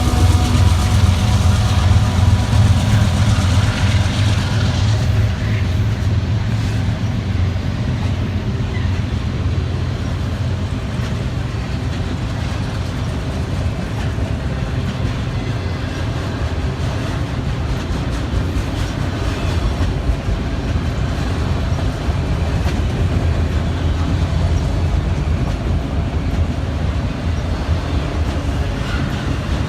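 A slow CSX freight train of autorack cars rolling past, with a steady low rumble of wheels on the rails. A set of steady pitched tones fades out over the first five seconds.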